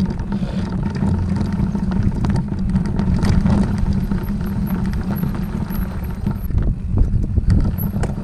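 A vehicle running as it drives over rough ground: a steady low engine rumble with frequent knocks and rattles.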